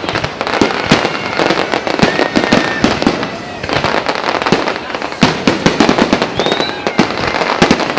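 Fireworks salute going off: a dense, continuous run of sharp bangs and crackling pops, with a few short high whistles in between.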